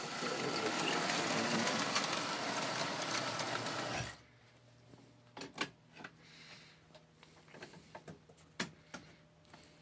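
Electric toy train running along the track with a dense mechanical rattle, cutting off abruptly about four seconds in as the power stops, followed by a few light clicks of handling.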